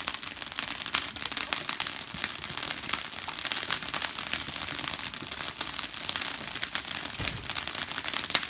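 Ground fountain fireworks spraying sparks with a steady, dense crackle.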